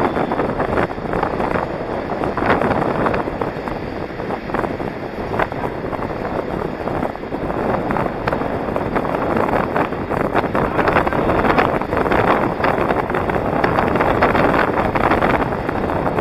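Wind rushing over the microphone of a camera carried by a moving inline skater, mixed with the rolling of inline skate wheels on asphalt, with scattered small clicks.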